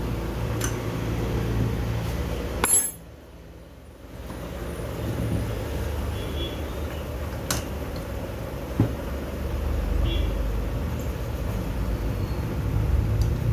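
Steady low rumble like road traffic or a vehicle engine running, with a few sharp clicks scattered through it. The rumble cuts out suddenly for about a second near three seconds in, then returns.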